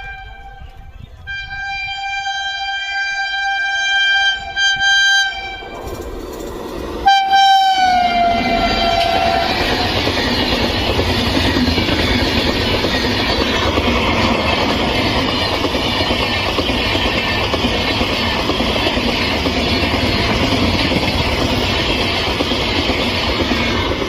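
An Indian Railways express locomotive's horn blows a long steady blast, then sounds again about seven seconds in with its pitch sliding down as the locomotive passes close by. Then the coaches rush past with a loud, even rumble of wheels on rail.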